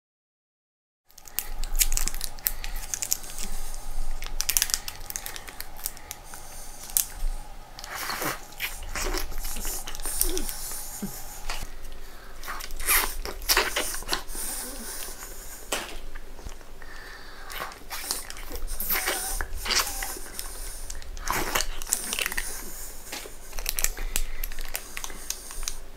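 Close-miked sounds of peeling the sealed lids off small plastic fruit jelly cups and chewing the soft jelly, with crinkling and sharp clicks of the plastic, starting about a second in.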